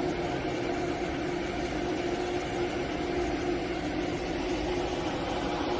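ATC CNC router's X and Y axis drive motors moving the gantry slowly back to its home position during homing: a steady machine hum with a constant whine.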